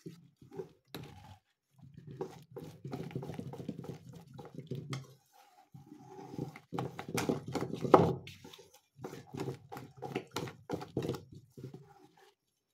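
Thick drop-scone batter being mixed in a bowl, a wet squelching with rapid clicks of the utensil against the bowl, in three spells with short pauses between.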